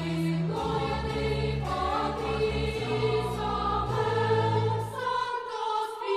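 Intro music: a choir singing slow, held chords over a low bass, the chords changing about once a second.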